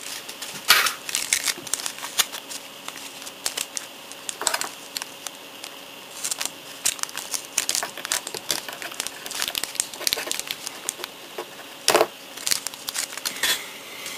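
Thin clear plastic bag crinkling and crackling as it is handled and rummaged through, in irregular bursts, with a louder crackle about twelve seconds in.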